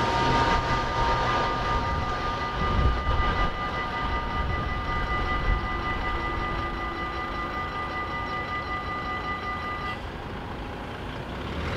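Level-crossing warning bells ringing steadily as the barriers rise, stopping about ten seconds in once the barriers are fully up. A low rumble of road traffic and the departing train runs underneath.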